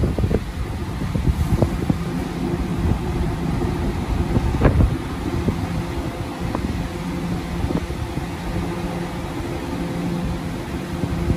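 Kawasaki R211A subway train standing with a steady low electrical hum, broken by a few sharp knocks, the loudest at the very start and about four and a half seconds in.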